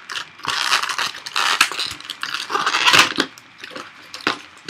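Cardboard and plastic webcam packaging rustling and crinkling as it is pulled apart and handled, with a few sharp clicks and knocks; the loudest crackle comes about three seconds in.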